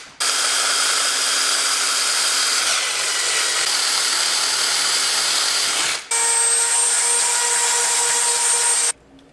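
Cordless drill running, boring out a hole in a plastic fuel pump hanger plate with an ordinary twist bit instead of a step drill, to widen it for a return-line fitting. It stops for a moment about six seconds in, then runs again with a steadier whine and cuts off shortly before the end.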